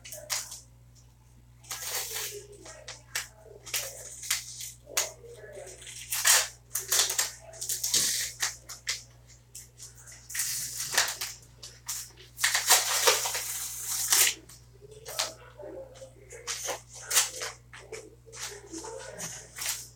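Irregular rustling and crinkling noises, as of things being handled and moved about, in bursts of different lengths over a steady low hum.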